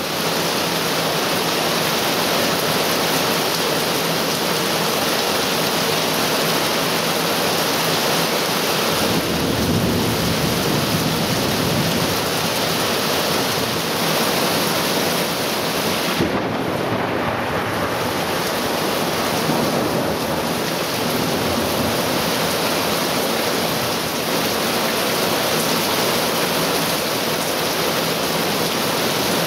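Torrential thunderstorm downpour: heavy rain pouring steadily, with a deeper low rumble building about nine seconds in.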